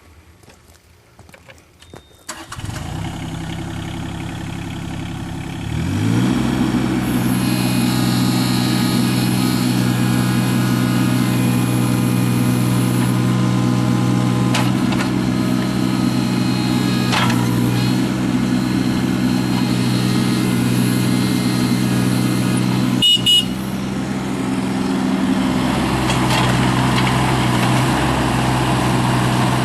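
John Deere 17D mini excavator's diesel engine started about two seconds in, catching at once and idling. After a few more seconds it is throttled up with a rising pitch and then runs steadily at the higher speed. A brief high beep comes about three-quarters of the way through.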